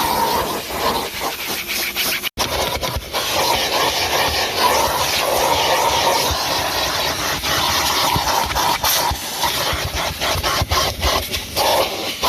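Numatic Henry Plus HVR200P vacuum cleaner running with a steady suction hiss, the nozzle scraping and rubbing over the car's interior in short strokes. The sound breaks off for an instant about two seconds in.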